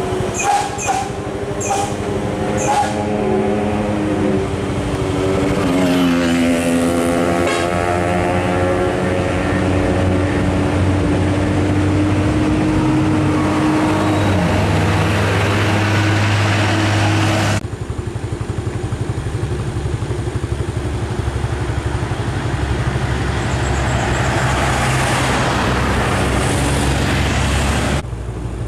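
Motor vehicle engines running on the road as traffic goes by, one dropping in pitch as it passes about six seconds in, then a steady low engine drone. The sound changes abruptly about 17 seconds in and again near the end.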